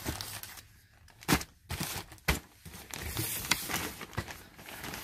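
Plastic packaging crinkling and rustling as a bedding set in a clear plastic bag is handled and lifted out of a cardboard box, with two sharp clicks about a second apart in the first half.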